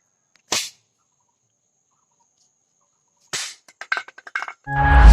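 Two sharp cracks like shots, about three seconds apart; the second is followed by a quick rattle of clicks. Loud music starts just before the end.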